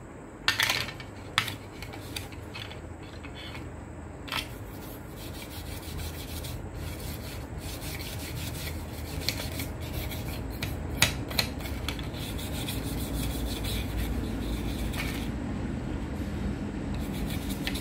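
A few sharp clacks as a metal LED board is set down on a metal plate, then a continuous scraping and rubbing of a hand tool worked along the metal board, growing gradually louder.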